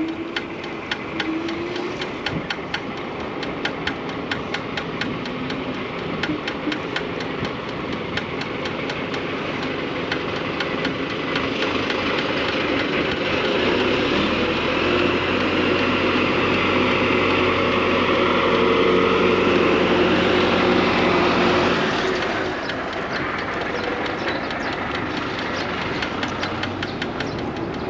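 Riding an electric scooter: road and wind noise with a fast, regular ticking. In the middle, a louder steady low hum from a heavy vehicle passing close by lasts about eight seconds.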